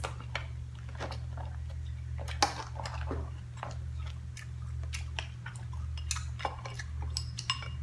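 Crab shells cracking and clicking as crab legs are broken and picked apart by hand, with chewing, the loudest crack about two and a half seconds in. A steady low hum runs underneath.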